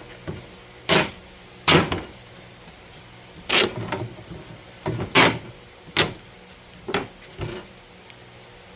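Duct tape being pulled off the roll in short, sharp rips as it is wrapped around wire and board, about seven pulls at uneven intervals.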